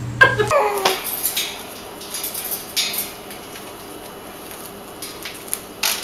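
Metallic clinks and rattles from a wire birdcage, a few scattered taps over several seconds, as a millet spray is pushed against the bars. A short squeal comes near the start.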